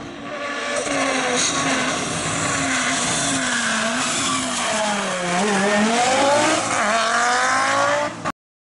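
Audi S2 quattro hillclimb car's turbocharged inline-five engine running hard. Its pitch sinks about five seconds in, then climbs steadily as it revs up again, and the sound cuts off abruptly near the end.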